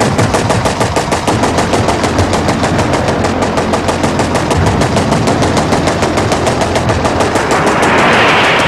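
A machine gun firing a long, rapid, steady burst over a low rumble, with a rushing noise building near the end.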